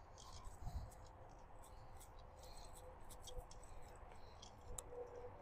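Faint scattered light clicks and rustling, with a low rumble underneath, as an archer walks back across grass carrying his bow and retrieved arrows.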